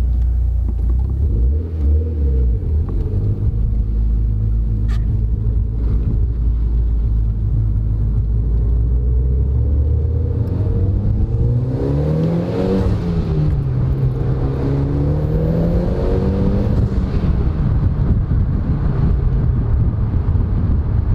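Mitsubishi Lancer Evo X's turbocharged four-cylinder engine heard from inside the cabin through its aftermarket Turbo XS exhaust. It drones at low revs, then pulls up through the revs under acceleration twice in the second half, the pitch rising and then dropping at each gear change.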